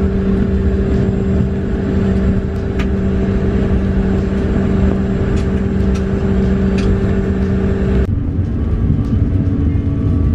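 Jet airliner's engines at takeoff power, heard from inside the cabin during the takeoff roll: a loud steady rumble with a steady hum over it. The hum jumps to a different pitch abruptly about eight seconds in.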